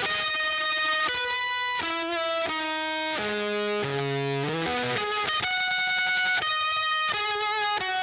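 Electric guitar played through an EarthQuaker Devices Fuzz Master General fuzz pedal: single sustained fuzzed notes, changing every half second to a second, with a slide up between notes about halfway through.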